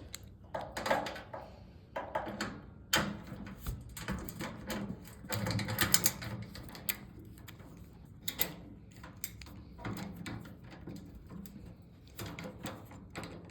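Screws being unscrewed from a toaster oven's sheet-metal housing: irregular clicks, scrapes and light metallic knocks, with a couple of sharper knocks about 3 and 6 seconds in.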